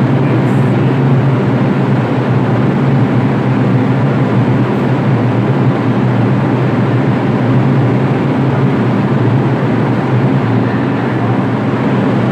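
R142 subway train standing at the platform with its doors open, giving off a loud, steady low hum.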